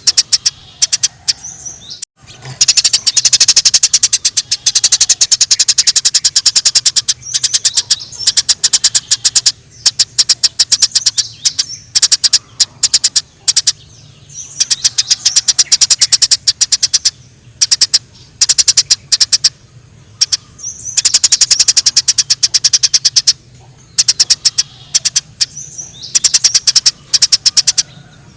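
Eurasian tree sparrows giving a rapid, fighting chatter: dense trains of sharp chirps in bursts of a few seconds with short pauses between.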